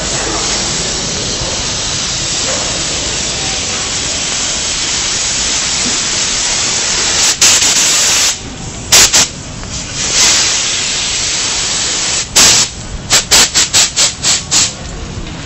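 Pressure washer jet hissing steadily as it sprays. Near the end it breaks into a quick run of short bursts.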